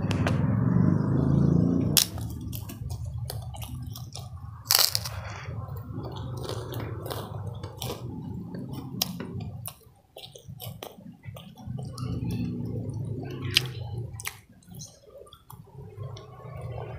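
A person chewing a mouthful of grilled pomfret and rice, with wet squishing and lip-smacking mouth sounds and frequent sharp smacks and clicks.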